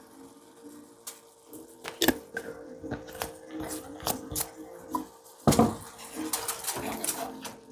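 Cooking utensil knocking and scraping against a frying pan as the mushrooms are stirred: a run of sharp clatters, the loudest about five and a half seconds in. A faint steady hum runs underneath.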